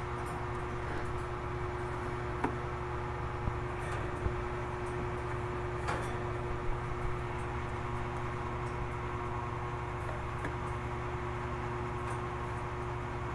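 Steady low hum with a faint held tone, broken by a few soft, sharp clicks.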